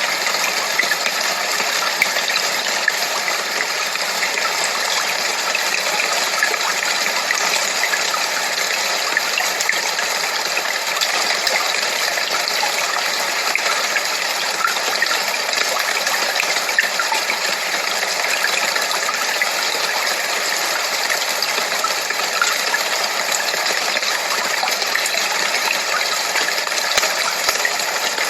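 Steady white noise: an even hiss with no deep bass, flecked with faint tiny crackles.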